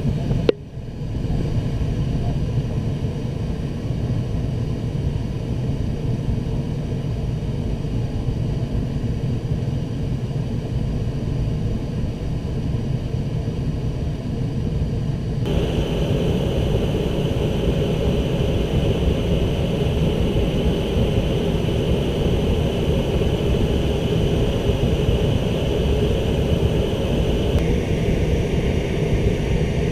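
Steady rush and low rumble of airflow around a glider's canopy in flight, with one sharp crackle about half a second in. About halfway through the rush turns brighter and louder, easing back shortly before the end.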